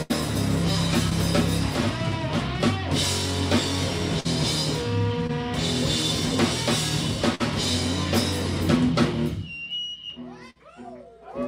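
Live rock band playing loudly: drum kit, electric guitar and bass. About nine and a half seconds in, the drums and bass stop and a lone electric guitar carries on with bending notes.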